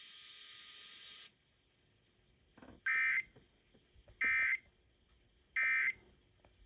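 Emergency Alert System (SAME) end-of-message data tones: three short, loud bursts of warbling digital data about 1.3 seconds apart, marking the end of the warning. A faint steady hiss before them cuts off about a second in.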